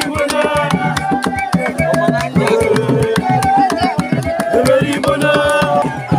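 Hand drums beaten in a fast, steady pattern, with voices singing over them.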